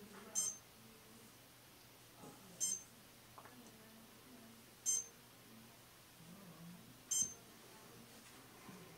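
A short, high electronic beep repeating at an even pace about every two and a quarter seconds, four times, over a faint steady hum.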